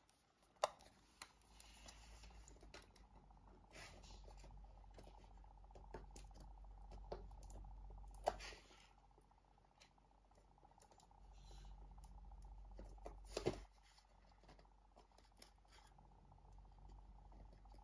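Faint scratching and scattered small clicks of fingers picking at and peeling clear sealing tape off a cardboard box lid, with a few sharper ticks.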